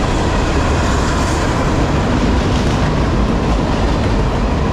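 Freight cars of a CSX manifest train rolling past at speed: a steady, loud rumble and clatter of steel wheels on the rails, with a faint thin whine running over it.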